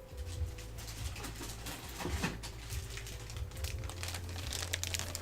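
Crinkling and rustling of kit packaging as small plastic model parts are handled, with quick light clicks that grow denser near the end.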